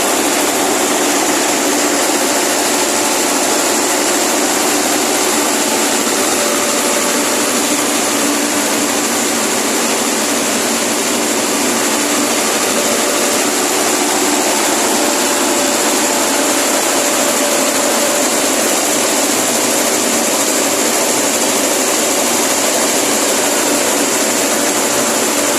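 An engine running steadily at a constant speed, a loud even hiss with a faint hum and no changes in pace.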